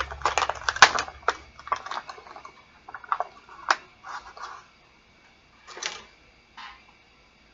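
Tape being peeled off and plastic packaging handled: irregular crackles and clicks, dense at first, then thinning out and stopping near the end.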